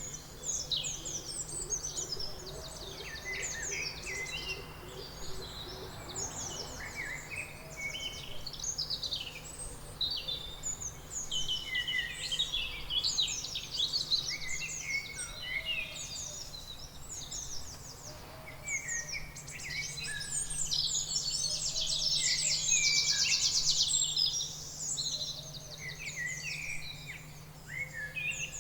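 Several birds chirping and singing together in a busy, overlapping chorus of short high calls. A rapid trill is the loudest part, from about three-quarters of the way through, over a faint steady low hum.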